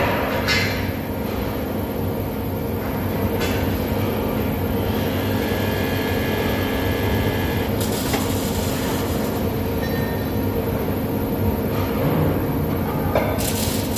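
Steady drone of factory machinery in a large steel-working shop, with a higher whine joining for a couple of seconds near the middle and a few short bursts of hiss.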